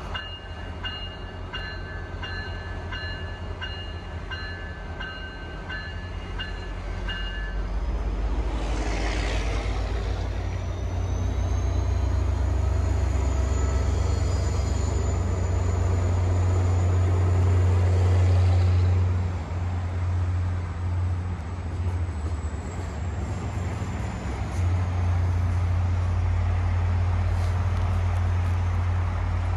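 MBTA F40PH-3C diesel locomotive passing close beneath with its engine drone, its bell ringing about one and a half times a second for the first seven seconds or so. The train then rolls past louder, with a thin high squeal rising and fading over the middle of the pass.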